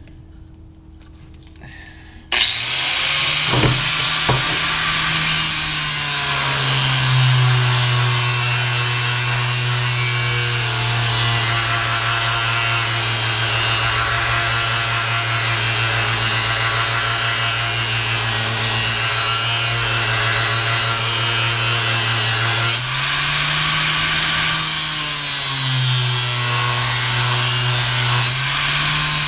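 A handheld power tool spins a sanding disc against a pulley, grinding material off it: a steady motor whine with the rasp of abrasive on the part, starting about two seconds in. The motor's pitch sags as the disc is pressed into the work and climbs back when it eases off, a few times near the end.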